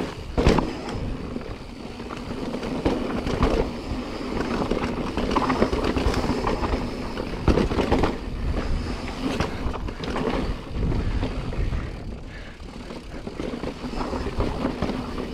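2021 Specialized Stumpjumper Evo mountain bike rolling down a rocky dirt singletrack: tyres crunching over dirt and rock, with frequent knocks and rattles from the bike as it hits the rocks. Wind rumbles on the chest-mounted camera's microphone.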